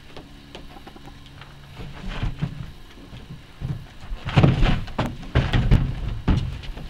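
Bumping, rubbing and scraping as a person lowers himself into a kayak lying on grass, his body and clothing knocking and sliding against the hull. It comes in uneven clumps: one about two seconds in, then a louder run from about four seconds to near the end.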